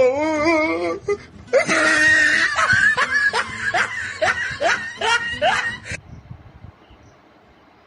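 A woman laughing: a drawn-out wavering giggle, then a run of breathy laughs about three a second, which stop about six seconds in.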